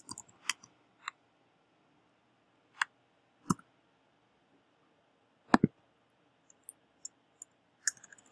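Scattered sharp clicks of a computer keyboard and mouse: a few in the first second, single clicks spaced a second or two apart after that, the loudest about five and a half seconds in, then faint light ticks near the end.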